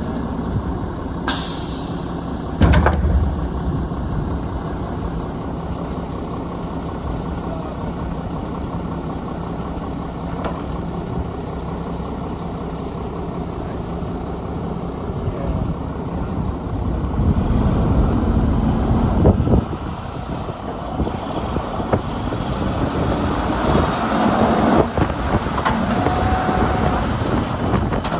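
Mack LE garbage truck's diesel engine running, with a short hiss about a second in and a loud bang shortly after. The engine grows louder for a couple of seconds past the middle, then drops suddenly, and short squeals come near the end.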